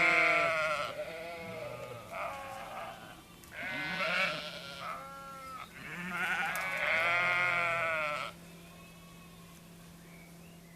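Sheep bleating: about six quavering bleats of different pitches follow one another, the last and longest ending about eight seconds in, after which it goes faint.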